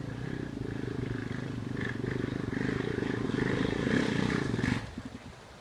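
Single-cylinder four-stroke engine of a Honda sport quad pulling up a rocky trail, getting louder as it approaches. It drops away abruptly about five seconds in.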